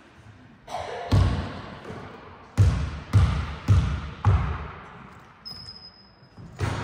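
A basketball being dribbled on a hall floor. One bounce comes about a second in, then a run of four bounces about half a second apart, each thud ringing briefly in the hall.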